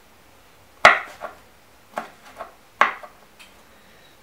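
Kitchen knife chopping a garlic clove on a wooden chopping board: about four sharp, separate knocks of the blade on the board, roughly a second apart, the first the loudest, with a few lighter taps between.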